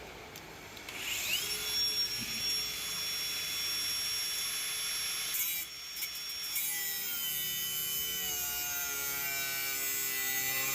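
A handheld electric power tool spins up about a second in to a steady high whine over a rough rubbing noise. It eases off briefly around the middle, then runs on with a lower, wavering hum under the whine.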